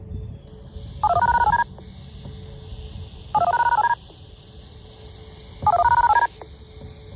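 Three short bursts of rapid touch-tone (DTMF) sequences, about two seconds apart. A faint steady tone from a distant outdoor warning siren runs underneath.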